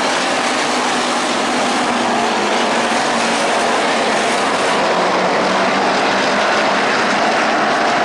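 Several dirt-track race cars racing together, their engines merging into one loud, steady din.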